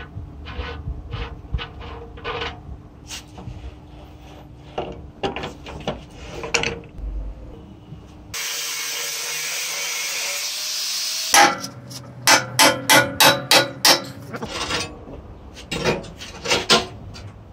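Scraping and picking at flaking rust on an old air compressor's steel tank, with scattered scratches and clicks. Then a steady hiss for about three seconds, followed by a quick run of sharp knocks, about seven in two seconds, and a few more near the end.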